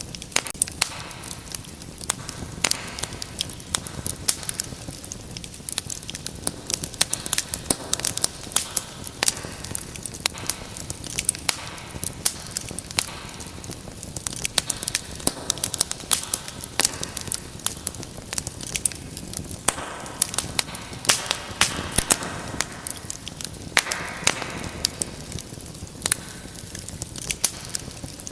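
Wood fire burning in a fireplace, crackling and popping irregularly over a soft steady hiss of flame.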